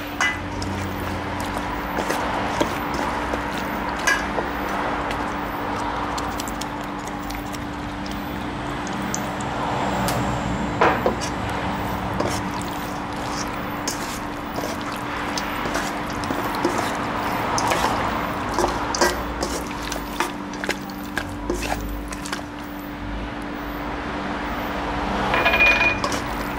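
Marinated raw chicken wings being mixed with flour in a stainless steel bowl using a metal spoon: continuous wet squelching with frequent sharp clicks of the spoon against the bowl.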